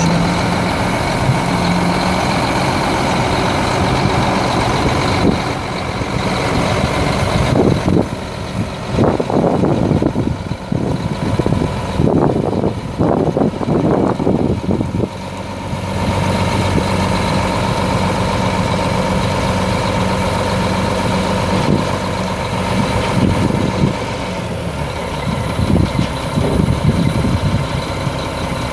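Mack E7 12-litre straight-six diesel of a 1991 Mack CH613 truck running steadily while the silage dump bed is hoisted up. There is a rougher, uneven patch of noise in the middle.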